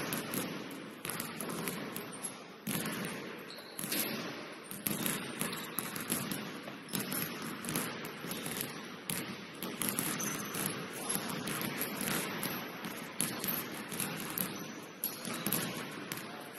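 Basketball game in play: many short, irregular knocks and thuds over a steady background noise.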